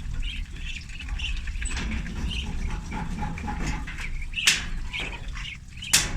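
A group of ducklings peeping, short high calls overlapping continuously, with two sharp knocks about four and a half and six seconds in.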